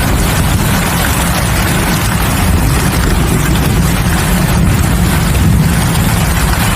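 Steady heavy monsoon rain, a dense even hiss with a deep low rumble underneath.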